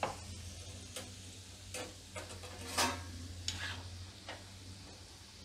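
Ghughra pastries deep-frying in ghee on a low flame: a soft sizzle with scattered sharp pops, roughly one every half second to a second.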